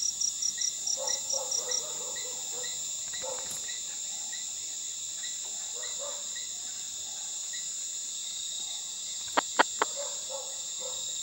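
Night chorus of crickets and other insects: a steady high-pitched chirring, with a faster pulsed chirp of about four beats a second that stops about two seconds in. Two sharp clicks sound close together near the end.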